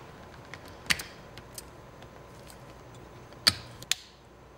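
Sharp clicks and cracks from an active stylus's metal tip end, gripped in locking pliers and bent to crack the glue holding it. The loudest cracks come about a second in and twice close together near the end.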